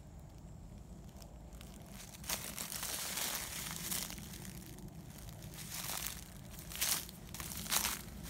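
Footsteps crunching and rustling through dry leaves and brush, starting about two seconds in, with a few louder crunches near the end.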